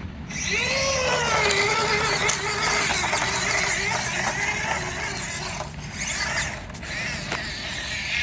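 Axial SCX24 micro RC crawler's small electric motor and gears whining as it drives, the pitch rising and falling with the throttle; it starts about half a second in and dips out briefly twice near the end.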